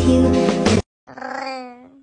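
Background music that cuts off just under a second in, followed by a cat's drawn-out meow starting about a second in.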